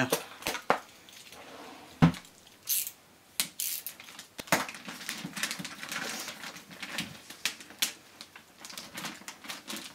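Clear LDPE plastic bag crinkling and rustling as it is pulled off a box by hand, in a run of sharp crackles. A single sharp knock about two seconds in.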